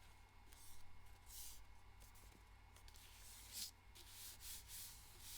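Faint rubbing and rustling of paper being handled on a desk: several short, soft swishes over a low hum.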